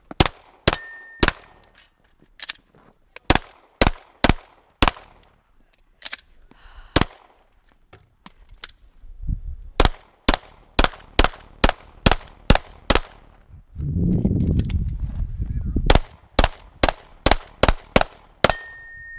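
Competition pistol fired in rapid strings, a few shots a second, broken by pauses where the shooter moves, reloads or deals with malfunctions. A stretch of low rumbling noise comes about two-thirds of the way through.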